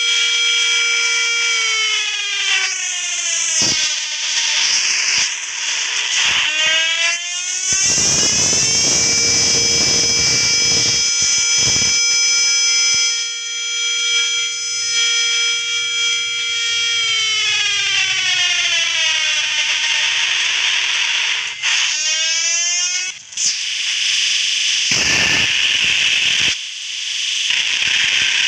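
Siren sound played loud through a boombox: a steady tone that slides down in pitch, quick rising and falling yelps, then steady again, with stretches of harsh hiss mixed in.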